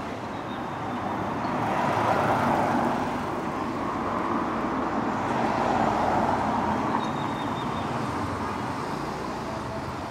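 Street traffic: cars passing on a city street, the tyre and engine noise swelling about two seconds in and again around six seconds.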